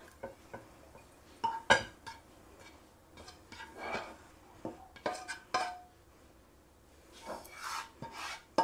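Fried shredded chicken and grated carrot scraped out of a frying pan into a glass bowl: scattered scrapes, taps and clinks of the pan and utensil against the pan and the glass, one clink about five seconds in ringing briefly.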